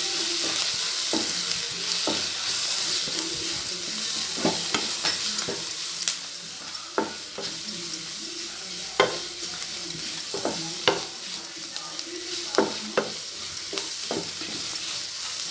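Onion masala filling sizzling in hot oil in a kadai while a spoon stirs it, steady frying hiss with irregular knocks and scrapes of the spoon against the pan, some ringing briefly.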